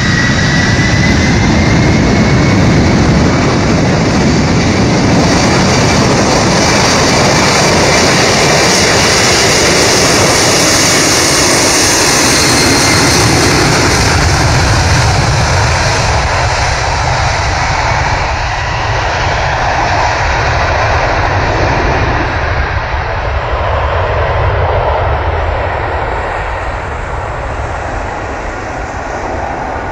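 Boeing 747 Dreamlifter's four jet engines at take-off thrust during the take-off roll, a loud steady rush with a high whine at first, fading gradually over the second half as the aircraft moves away down the runway.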